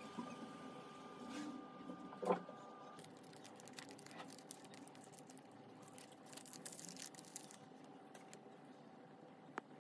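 Small handling clicks and rustles as a test-kit swab pouch is handled and peeled open, with a burst of crinkling paper and plastic about six to seven seconds in. A single knock about two seconds in is the loudest sound, and a faint steady hum sits underneath.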